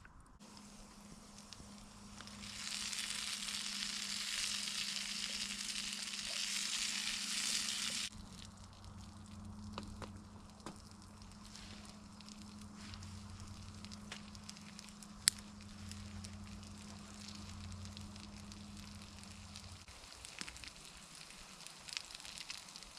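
Potatoes frying in butter in a pan. A loud sizzle cuts off suddenly about eight seconds in and gives way to a softer sizzle with scattered crackles and one sharp pop. A low steady hum under it stops near the end.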